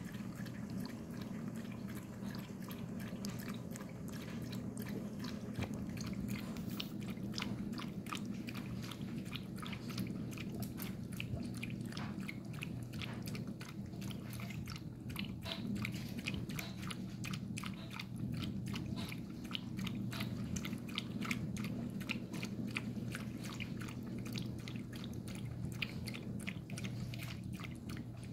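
A Shih Tzu lapping water from a bowl: a long run of quick, wet tongue clicks, several a second, over a steady low hum.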